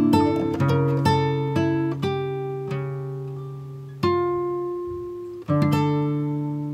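Background music: an acoustic guitar playing plucked notes and chords that ring out and fade, with fresh chords struck about four and five and a half seconds in.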